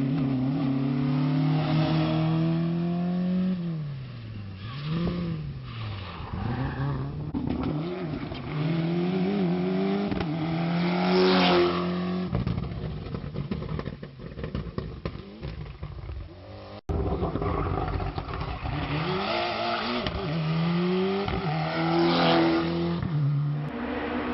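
Rally cars driven flat out past the camera, one clip after another: engines revving hard, their pitch climbing and dropping again and again as the cars accelerate, lift and change gear. Partway through it cuts abruptly to another car.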